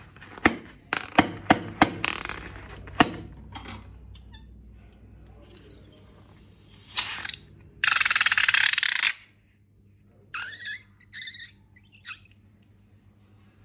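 Balloon and slime handling: several sharp clicks in the first three seconds, then a loud rushing noise for about a second and a half, and a few short squeaks near the end.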